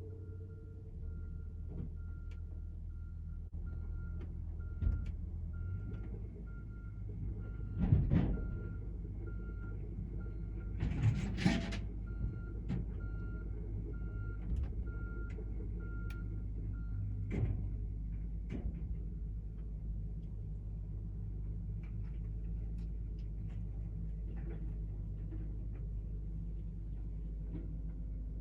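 Caterpillar 307C excavator's diesel engine running steadily, with a warning alarm beeping about once or twice a second that stops after about seventeen seconds. A knock comes about eight seconds in, and a louder metallic clatter around eleven seconds in.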